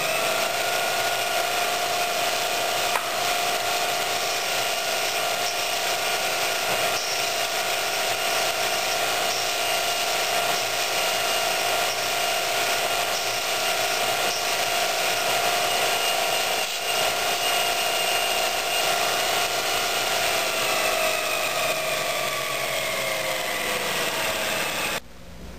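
MULTITOOL belt grinder running a 3M polishing belt with compound, buffing a steel railway spike: a steady whine over a hiss. The whine sags lower over the last few seconds, then cuts off suddenly.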